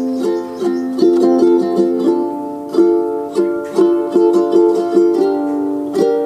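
Background music: a light tune of plucked string notes, struck in a steady rhythm, each note dying away.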